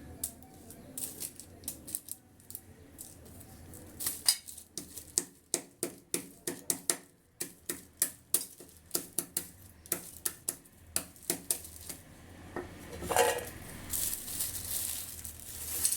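Lumps of borax being pounded by hand: a long run of sharp knocks, two to three a second, with a rougher scraping noise near the end.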